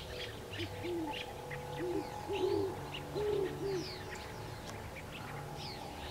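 Great horned owl hooting: a run of low, arched hoots in quick succession that stops about two-thirds of the way through, over the high chirps of small birds.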